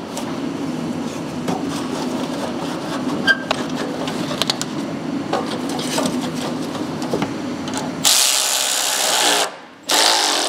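Steel exhaust pipe and clamp parts being handled and fitted under a car, with light metal clicks over a steady low workshop hum. About eight seconds in there is a loud hiss lasting a second or so, then a second shorter one near the end.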